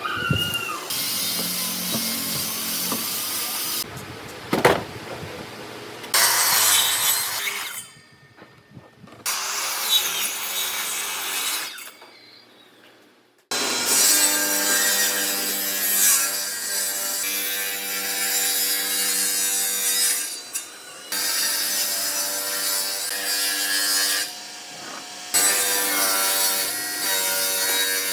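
Wood being sawn, heard in a run of short, abruptly cut clips, with a rasping noise throughout. From about halfway on, a steady hum runs under the sawing.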